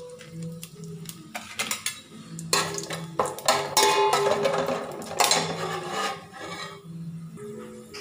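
A metal spoon clinking and scraping against an aluminium pot as whole spices are dropped into hot oil and stirred. The clatter comes in bursts, busiest in the middle.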